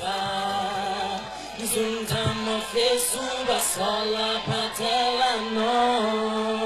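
Several voices singing a song together over a steady held low note.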